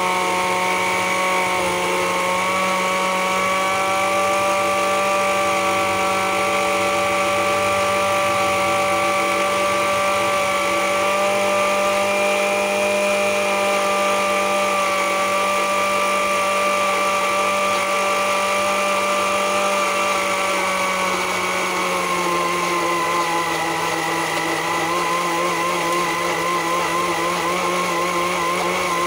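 Spell countertop blender's motor running steadily, blending herbs and green chillies into a paste. Its whine drops slightly in pitch about three quarters of the way through and then holds.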